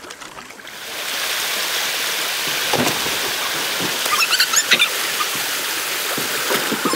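Water rushing steadily over a small river weir, starting abruptly about a second in.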